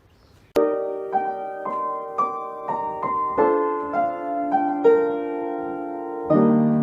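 Piano music starting suddenly about half a second in, a gentle melody of single struck notes over held chords.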